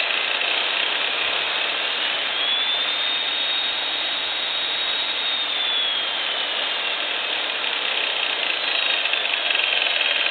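Milwaukee 4206-1 magnetic drill press motor running free in reverse with no bit, a steady mechanical whir. A high whine rises in pitch about two seconds in, holds, then slowly sinks over the following seconds.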